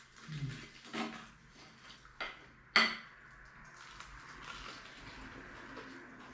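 A knife and fork clinking and scraping against dinner plates during a meal. There are a few separate clinks, and the sharpest and loudest comes just before the middle.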